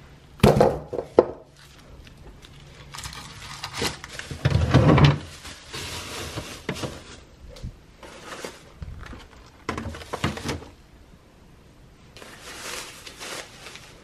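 Groceries being handled and put away: plastic produce bags and grocery totes rustling in irregular bursts, with a few sharp knocks as items are picked up and set down on the counter.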